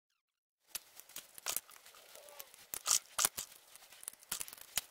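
Irregular small clicks and scrapes from a screwdriver and fingers working the wires and terminals in a mini mill's plastic control box, starting after a brief silence, with the sharpest clicks near the middle.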